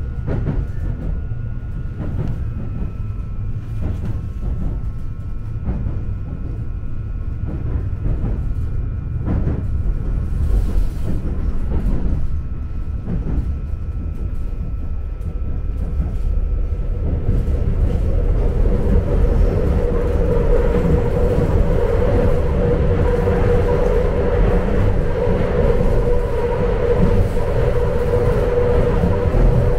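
Seoul Subway Line 2 train running, heard from inside the carriage: a steady low rumble with wheel clicks every second or two and a faint steady whine. From a little past halfway, the running noise grows louder and a steady mid-pitched drone comes in.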